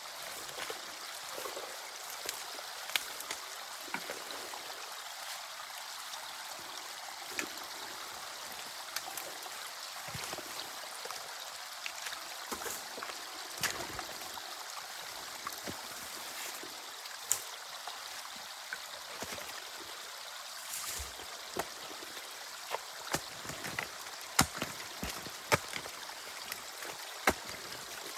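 Water running and trickling through a beaver dam in a drainage canal, an even rushing hiss. Scattered small clicks and knocks come through it, more often near the end.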